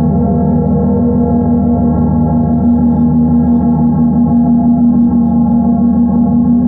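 Bells ringing as a steady, dense drone of many overlapping tones, with no single strike standing out.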